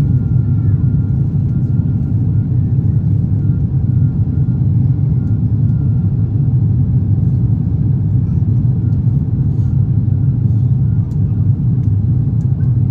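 Steady low rumble inside the cabin of an Airbus A350-900 climbing out after takeoff: its Rolls-Royce Trent XWB engines at climb thrust, with the rush of air past the fuselage.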